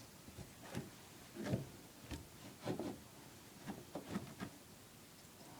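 Light knocks, clicks and rubbing from handling drain parts, about seven separate knocks scattered through a few seconds as the plumbing is put back together.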